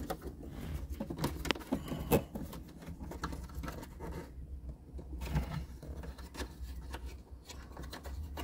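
Hands fitting a 1998 Jeep Cherokee XJ's plastic instrument cluster into the dash: scattered light plastic clicks, taps and scraping as it is pushed and adjusted into place.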